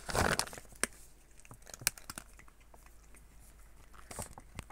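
Plastic pet-food bag crinkling briefly as it is handled, followed by scattered faint clicks and crackles.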